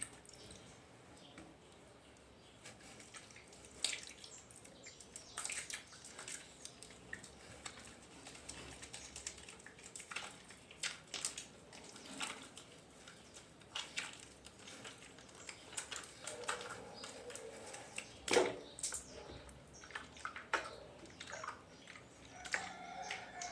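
A wet silicone squishy toy being squeezed and washed with water: irregular sticky, wet clicks and squishing with dripping, and a few brief squeaks.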